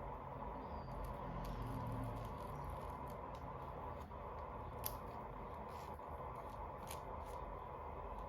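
Faint clicks and taps of toy packaging being handled during an unboxing, with two sharper clicks in the second half, over a steady low hum.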